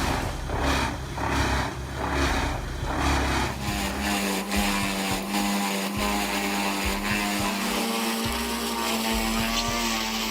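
Machine engine running: it pulses in a steady rhythm for the first few seconds, then settles into a steady, even drone.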